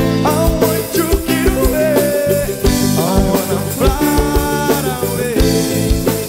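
A band playing live: a singer's melody over sustained instrumental chords and a regular drumbeat, in a samba-house style.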